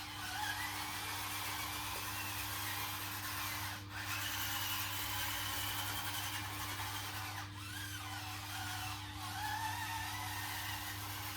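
Small electric drive motors and gearboxes of a 1/16 scale RC bulldozer whining, the pitch rising and falling with the throttle, cutting out briefly three times.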